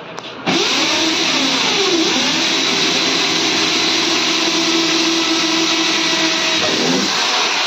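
Handheld electric drill running, its bit boring a screw hole through a number plate. It starts about half a second in, the motor pitch dips and recovers twice under load in the first couple of seconds, then it runs steadily before slowing down near the end.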